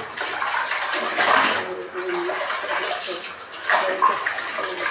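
Water running and splashing in the kitchen, unevenly, swelling and easing as it is used.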